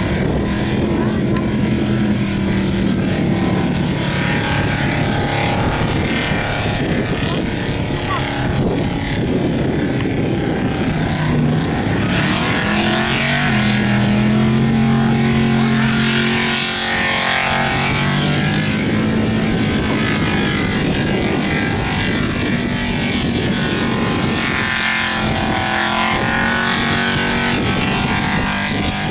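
Holden VK Commodore's V8 engine held at high revs through a burnout, the revs rising and falling, with the rear tyres spinning and smoking on the bitumen.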